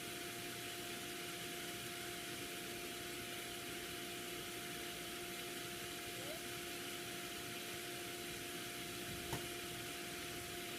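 Steady background hiss with a low, even hum, and one faint knock about nine seconds in.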